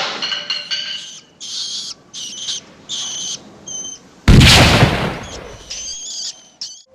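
A single loud gunshot about four seconds in, a dubbed Indiana Jones film gunshot effect, fading out over a second or so. Before and after it come several short, high-pitched sounds.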